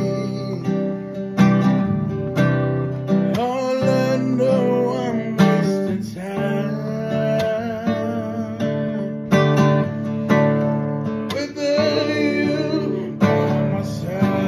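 A man singing while strumming chords on a nylon-string classical guitar.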